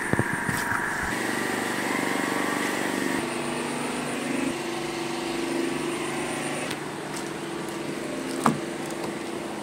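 Vehicle engine idling with a steady hum, with one sharp click about eight and a half seconds in.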